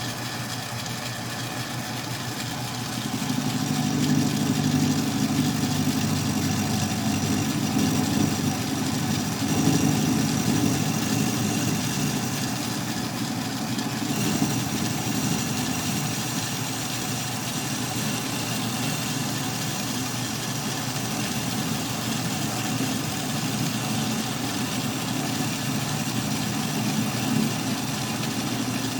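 Atlas 10-D metal lathe running under power, with a steady motor and belt-drive hum, taking a light cut of about 15 thou. It gets louder about three seconds in.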